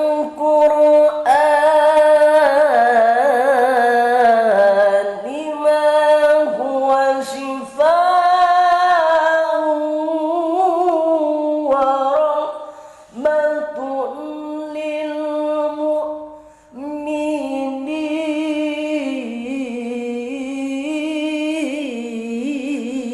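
A male qari reciting the Qur'an in a melodic, ornamented style: one unaccompanied voice in a high register, drawing out long wavering phrases and breaking off for breath a few times.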